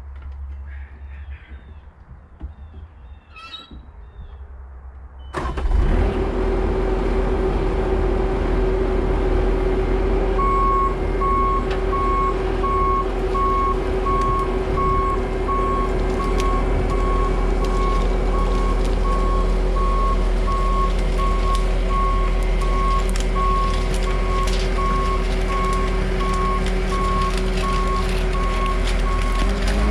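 Skid steer's engine running loud and steady after a sudden rise about five seconds in, low and quiet before it. From about ten seconds in its reversing alarm beeps steadily, about once a second, as the machine backs up.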